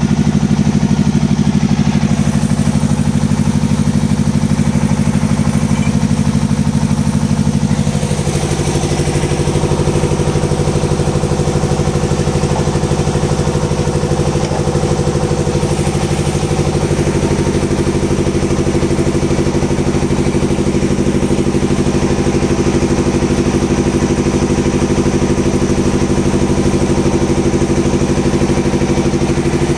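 Excavator's diesel engine idling steadily, its note shifting slightly about eight seconds in.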